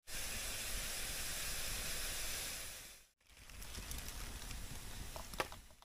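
Steady hiss of green bamboo tubes steaming over a wood fire. After a cut, quieter fire noise with scattered crackles and one sharp pop near the end.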